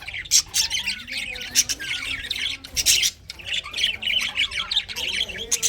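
Budgerigars chattering and warbling without a break, with several sharp squawks scattered through.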